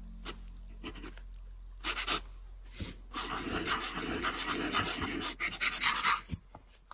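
Fountain-pen nib of a 1940s Waterman Hundred Year Pen scratching across paper while a signature and a zigzag flourish are written. There are a couple of short strokes about two seconds in, then a dense run of quick strokes from about three seconds in, stopping just past six seconds.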